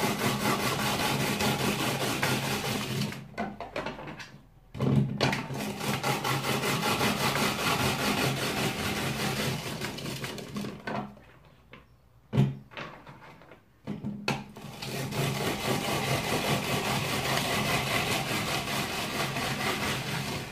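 Hand-cranked Tupperware Profi Chef rotary drum grater with its coarse grating drum, shredding radishes: a steady rasping grind while the crank turns. It stops briefly about three seconds in, and again for a few seconds in the middle, with a single knock during the second pause.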